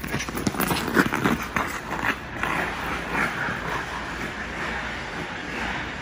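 Ice skates and a wheeled camera dolly moving across rink ice: a clatter of quick scrapes and knocks in the first two seconds, then a steady gliding hiss that slowly fades.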